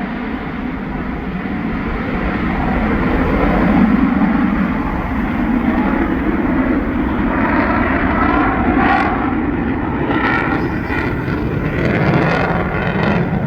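US Navy F-35C jet engine (single Pratt & Whitney F135 afterburning turbofan) heard from the ground during a demo flight: a loud, continuous jet roar that builds to its loudest about four seconds in, then takes on a sweeping, phasing tone from about eight seconds in as the jet moves across.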